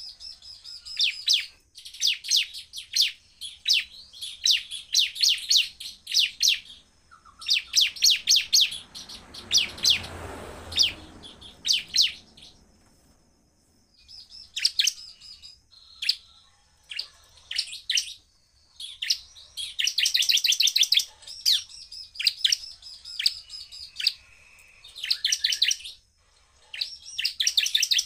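Bar-winged prinia (ciblek) singing in rapid-fire bursts of sharp, high chirps, each burst a fast string of notes, separated by short pauses. A brief low rushing noise passes under the song about ten seconds in.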